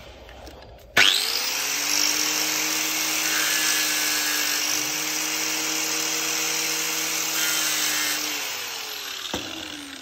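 Electric grinder switched on about a second in with a quick rising whine, running steadily while it sharpens the point of a marking tool, then switched off and winding down near the end.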